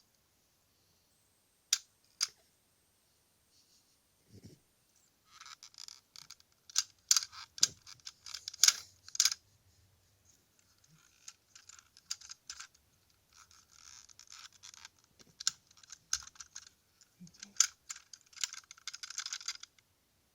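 A run of irregular clicks, taps and scratchy rustling: two sharp clicks about two seconds in, then denser clicking and rustling from about five seconds in.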